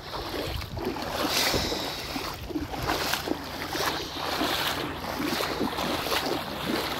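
Legs wading through knee-deep floodwater, the water sloshing and splashing in a rhythmic surge with each stride.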